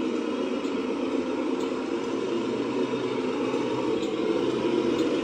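Radio-controlled semi truck with a long multi-axle trailer driving across the floor, giving a steady engine-like drone.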